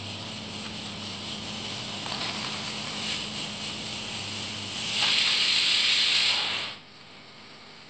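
A parcel's packaging being torn and rustled open: a steady hissing rasp, with a louder stretch of nearly two seconds that starts about five seconds in and cuts off suddenly.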